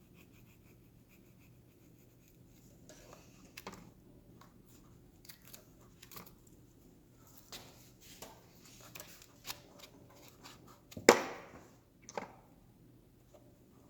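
Kaizen foam being cut and picked out by hand: irregular scratching and tearing with small clicks, and one sharp knock about eleven seconds in.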